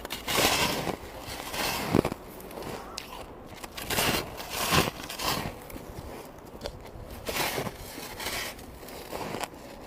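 Person biting and chewing white ice: a string of crunching bursts with sharp cracks about two seconds in and just before five seconds, and softer chewing crunches between.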